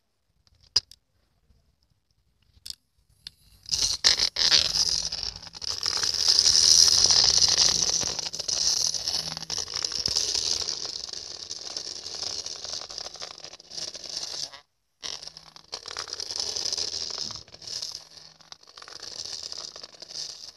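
Battery-powered Hamsters in a House toy hamster running around its plastic track: a steady rattling, scraping whir with a low motor hum. It starts about three and a half seconds in, after a few light clicks, and cuts out for a moment about three quarters of the way through.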